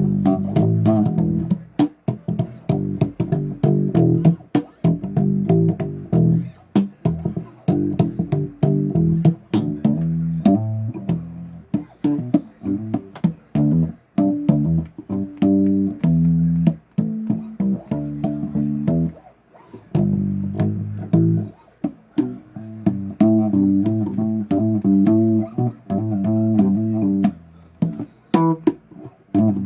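Bass guitar played solo, a steady run of plucked notes riffing with short breaks between phrases and sharp clicks of fingers on the strings.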